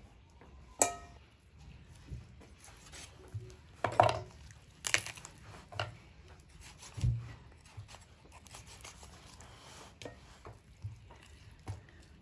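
Kitchen knife cutting up a raw whole chicken on a wooden cutting board: irregular knocks of the blade on the board and tearing of skin and joints. A sharp click with a brief ring comes about a second in, and a low thud about seven seconds in.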